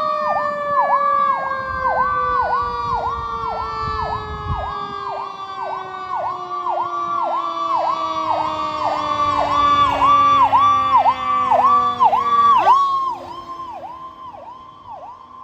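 Fire apparatus sirens on an emergency response: an electronic siren cycling in a fast whoop, about two or three times a second, over a second, lower siren tone that falls slowly in pitch for about twelve seconds and then drops away sharply. There is low engine rumble early on, and everything grows fainter near the end.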